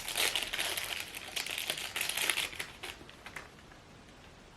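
Plastic packaging crinkling and rustling as an accessory is unwrapped, fading out after about three seconds.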